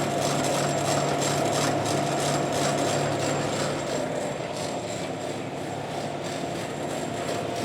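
Steady machine drone with a low hum, the hum dropping out about four seconds in while a lighter mechanical noise carries on.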